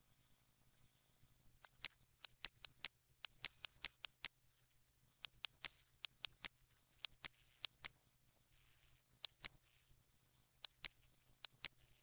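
Computer mouse buttons clicking: dozens of sharp clicks starting a couple of seconds in, many in quick pairs like double-clicks, with a few brief soft swishes about two-thirds of the way through.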